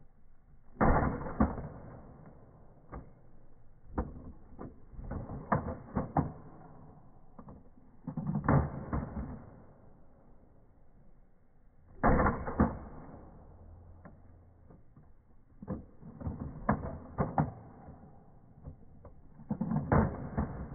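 Nerf foam-dart blaster being worked and fired: repeated clusters of sharp plastic clacks and thumps, about seven or eight bursts a few seconds apart.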